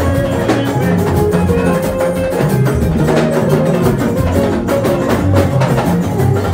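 Loud dance music with a steady drum beat over a bass line.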